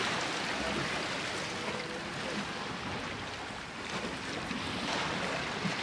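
Steady wash of sea water with wind on the microphone.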